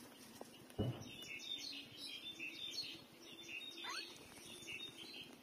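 Newborn puppies squeaking, many short high squeaks as they jostle to nurse, with one rising whine about four seconds in. A dull thump about a second in.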